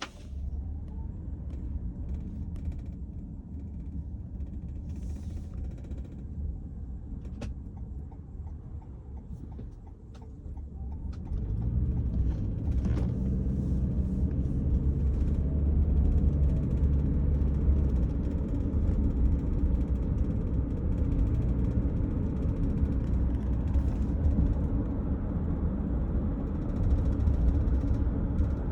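Cabin noise inside a 2023 Toyota Sienna on the move: a steady low road and engine rumble that grows louder about eleven seconds in, with a few faint clicks from the second-row area.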